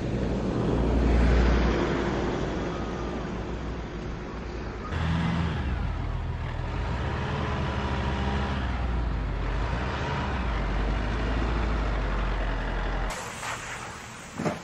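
Engine of a heavy road vehicle running, a low steady hum. The sound changes abruptly about five seconds in and drops away near the end.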